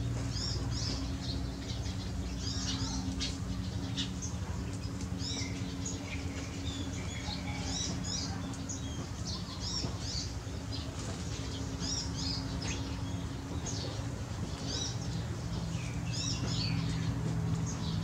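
A flock of small birds chirping in the trees, many short high calls overlapping continuously, over a low steady hum.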